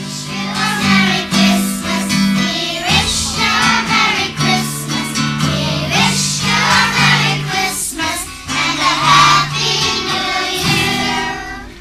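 A group of children singing a song together, over an instrumental accompaniment of held low notes that change every second or two.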